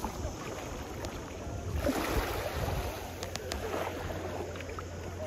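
Small sea waves washing onto a sandy shore, with some wind on the microphone.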